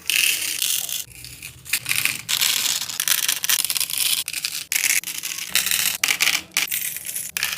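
Parcel packaging being handled and opened close to the microphone: continuous rustling and scraping with irregular crackles and tearing.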